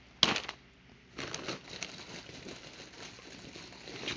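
Plastic packaging crinkling and rustling as items are handled: one sharp crinkle just after the start, then irregular crackling rustles from about a second in.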